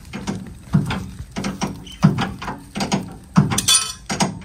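Harvesting machinery clanking in a steady rhythm: a low knock about every two-thirds of a second, with lighter clicks and rattles between, and a brief high squeak a little before the end.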